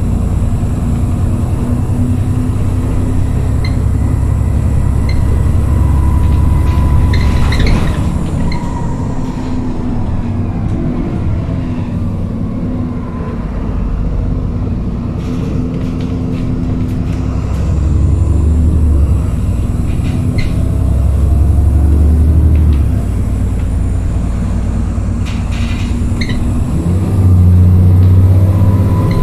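Alexander Dennis Trident 2 Enviro400 double-decker bus on the move, heard from inside the passenger cabin. Its diesel engine drones low, rising and falling in pitch and level with engine speed, with a few short rattles and clicks from the bodywork.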